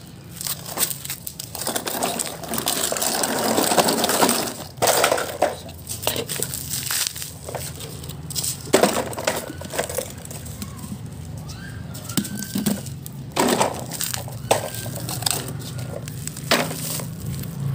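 Plastic toy vehicle parts being handled and fiddled with: irregular clicks, knocks and rustling, over a steady low hum.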